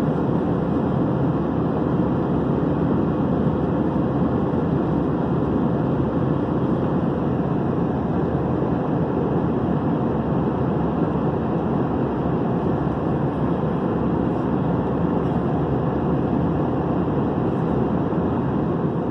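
Steady in-flight cabin noise of an Airbus A321-211: an even rush of airflow and engine noise, with a faint steady hum running under it.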